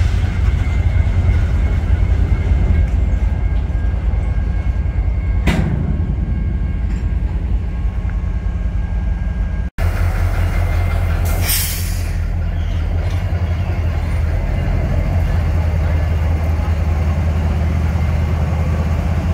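CSX freight train rolling past at close range, hopper cars and then diesel locomotives including a GE ES44AH: a loud, steady low rumble of engines and wheels on rail. A brief sharp high noise cuts through twice, and the sound drops out for an instant about halfway.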